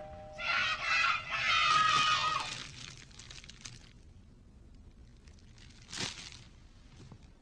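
The last notes of a music cue die away over the first two or three seconds. Then a clear plastic candy bag crinkles faintly as it is handled, with a short, sharper crinkle about six seconds in.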